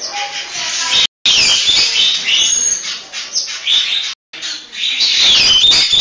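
A busy chorus of bird chirps and whistled calls from several birds at once, breaking off to silence for a moment twice, about a second in and just after four seconds.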